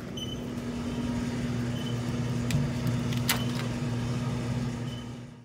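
Steady electrical hum of a store's refrigerated drink cooler, with a faint short beep now and then. About two and a half to three and a half seconds in come a few sharp clicks from a plastic soda bottle being pulled from the cooler shelf. The sound cuts off abruptly at the end.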